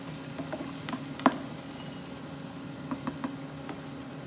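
Slotted spatula stirring onion, garlic and dried red chillies frying in oil in a ceramic-lined frying pan, knocking against the pan in a few sharp clicks, the loudest about a second in, over a steady low hum.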